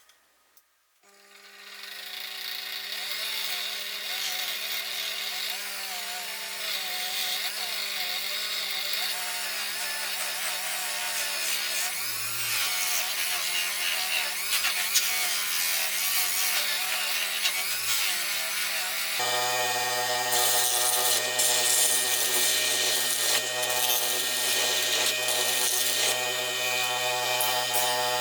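Electric polishing tool running steadily with a constant motor hum, its buffing wheel rubbing against small steel toy parts. About two-thirds of the way in, the hum drops to a lower pitch and the rubbing hiss gets louder, as the tool is run at a slower speed or the work is pressed harder.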